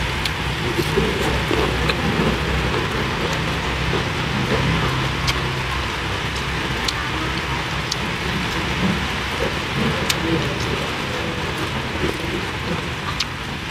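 Steady rain-like hiss with scattered small clicks and crackles while fresh herb leaves are picked, folded and eaten.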